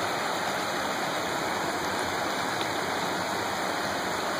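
Shallow, rocky mountain stream rushing steadily over stones and a small cascade.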